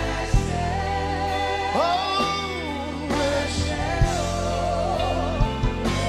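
Live gospel worship song: a band plays sustained chords while a voice sings a wavering, ornamented line, with a few sharp drum hits.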